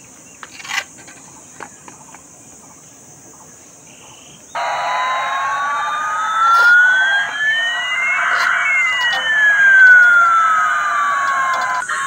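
A few light handling clicks, then, about four and a half seconds in, a toy airliner's electronic jet sound effect starts abruptly. It is a loud rushing noise with one tone sweeping up while another sweeps down, the two crossing midway, and it cuts off just before the end.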